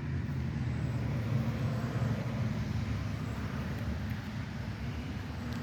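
Lawn mower's small petrol engine running steadily.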